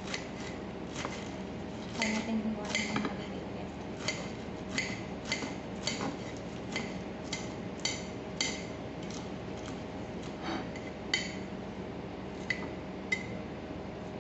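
Knife cutting arugula leaves on a ceramic plate, the blade clicking against the plate with each cut: a quick cluster of cuts about two seconds in, then about two clicks a second, thinning out near the end.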